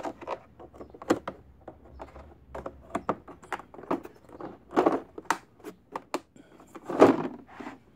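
Hard plastic socket-set cases being handled, with irregular clicks, knocks and rattles of the case shells, latches and sockets, and a louder clatter about seven seconds in.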